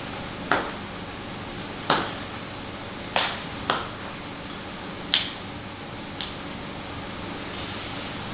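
Ballet boots clicking on a granite tile floor as the wearer steps and shifts on their toes: about six sharp, irregular clacks of the hard boot tips and heels on stone, over a steady background hiss.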